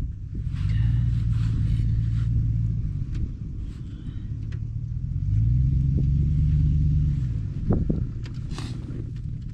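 An engine running, its low hum swelling up and holding twice for about two seconds each time before easing back.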